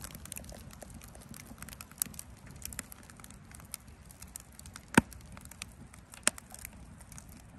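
Wood fire crackling in a cut-down steel drum, with scattered sharp pops; the loudest comes about five seconds in.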